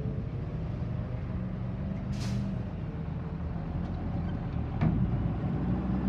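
Road traffic with a heavy truck's diesel engine running close by, a short air-brake hiss about two seconds in, and a sharp knock near the end.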